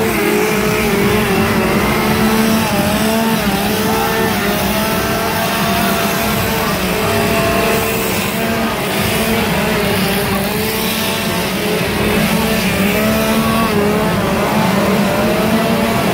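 Gas chainsaw engines revving up and down continuously, the pitch wavering as the throttle is worked.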